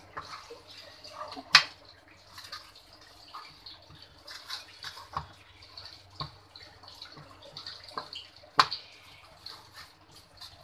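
Wooden spatula pressing and scraping a sticky melon-seed and sugar-syrup mixture flat in a metal tray, with soft rustling and small knocks. Two sharper clicks of the spatula against the tray come about 1.5 s and 8.5 s in.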